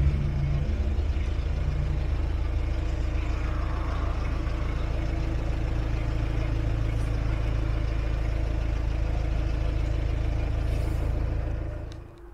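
Narrowboat diesel engine running, a steady low hum that cuts off near the end.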